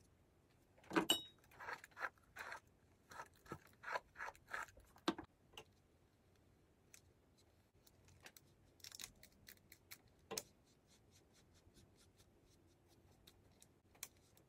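Faint handling noises of hands working on a wig and a hair flat iron: a quick run of rustles and small clicks, then scattered light ticks with a short cluster about nine seconds in.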